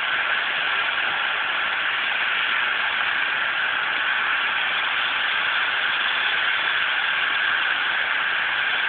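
Trauma helicopter's turbine engines and rotor running steadily, a constant high whine over a loud rushing noise.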